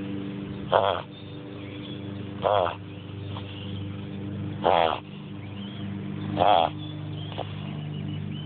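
Dog sneezing in four short fits about two seconds apart, each a loud pitched snort, over a steady low hum.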